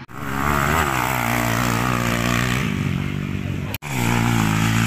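Motocross dirt-bike engine running hard under throttle, its pitch rising and falling as the rider works it around the dirt track. The sound breaks off for an instant just before the end, then the engine carries on.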